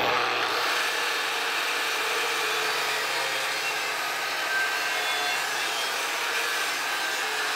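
A 4.5-inch angle grinder with a 1/8-inch cut-and-grind disc grinding steadily into a steel weld seam, worked back and forth to cut a groove. It is back-gouging the weld to dig out a line of incomplete fusion.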